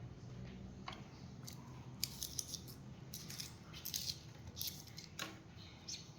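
Irregular small clicks and crinkles of hands working plastic sealing around a PVC pipe.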